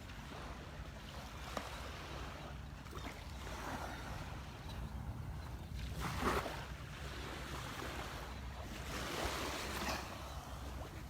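Small surf washing onto the beach, with wind rumbling on the microphone; the wash swells louder about six seconds in and again around nine seconds.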